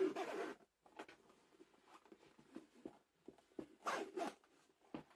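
Zipper on a hard EVA keyboard carrying case being drawn closed in short zipping pulls, two of them louder about four seconds in. Light handling scrapes and a click come between the pulls.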